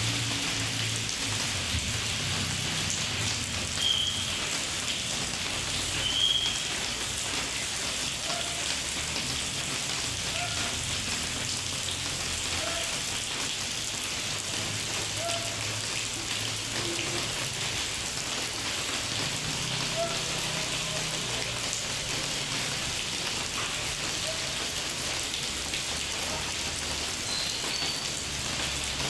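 Heavy rain falling steadily, with a low hum beneath it. Two short high-pitched tones sound about four and six seconds in.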